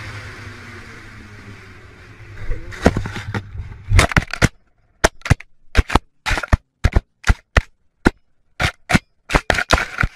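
A steady rumble fades out, then a long, irregular run of sharp bangs and clicks follows, each one short with dead silence between.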